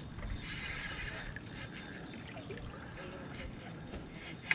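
Spinning reel being cranked steadily, its gears whirring as line is retrieved on a hooked bass, with a short sharp knock at the very end.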